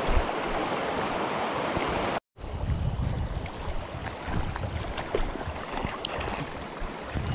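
Steady rush of river water close to the microphone, which cuts off suddenly about two seconds in. Lower, uneven rumbling with scattered small knocks follows.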